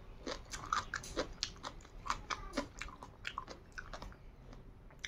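A person chewing food close to the microphone: a steady run of short mouth clicks, several a second.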